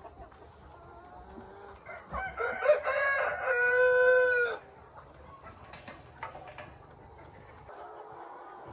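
A rooster crowing once, starting about two seconds in. The crow breaks up at first and ends in a long held note.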